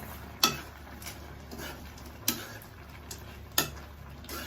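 A metal spoon knocking against a cooking pot while the dish is stirred: about five sharp clinks at uneven intervals.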